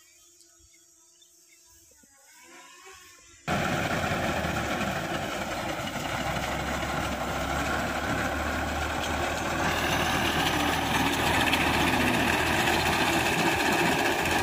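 Faint steady tones, then about three and a half seconds in a sudden switch to a loud, steady tractor engine running with its wheat reaper attachment cutting wheat.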